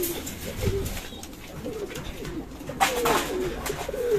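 Domestic pigeons cooing in a loft, a run of low, wavering coos repeating throughout.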